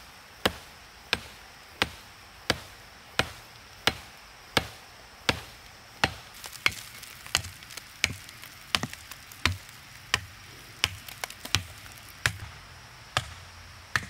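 Steady chopping: sharp blows from a hand tool or blade, about three every two seconds, with fainter ticks between them through the middle stretch.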